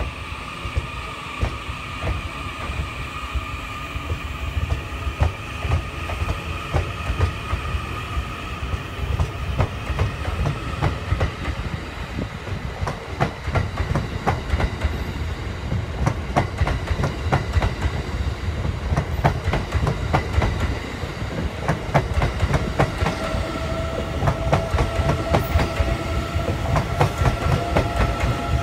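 JR East E001 'Train Suite Shiki-shima' cruise train rolling past as it pulls away from a station, its wheels clacking over the rail joints over a low rumble. A steady whine runs above it and changes pitch in the last few seconds as the end car passes.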